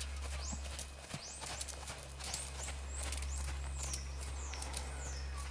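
Hoofbeats of a young warmblood horse on soft sand arena footing under a rider, set against a steady low hum. From about two seconds in comes a run of high whistles that slide up and then down.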